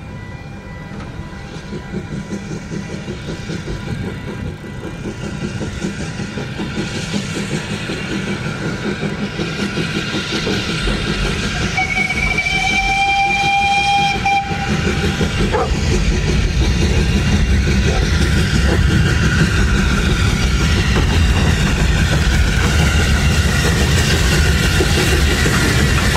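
A steam-hauled train approaching and growing steadily louder, with the locomotive's whistle blowing once for about two seconds about halfway through.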